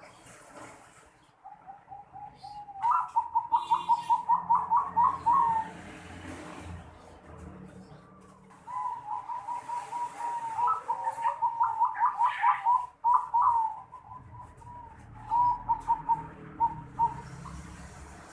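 Zebra dove (perkutut) cooing in the unusual song style fanciers call 'noklak': after a soft lead-in, three phrases of rapid, evenly spaced staccato notes. The first lasts about three seconds, the second about five, and the last is short and broken.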